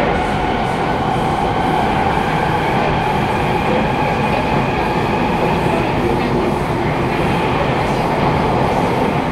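Kawasaki Nippon Sharyo C751B metro train running through a tunnel, heard from inside the carriage: a steady rumble of wheels on rail with a steady whine over it.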